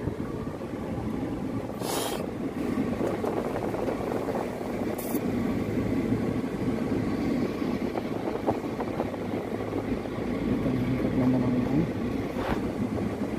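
Steady road and engine noise inside a van's passenger cabin on the move, with two brief clicks, about two and five seconds in.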